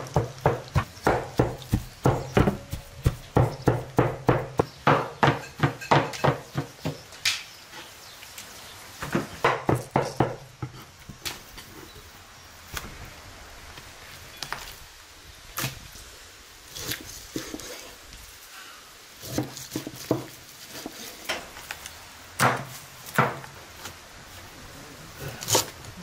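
Knife chopping on a wooden cutting board: a fast, even run of knocks about three a second for the first seven seconds, then scattered single knocks.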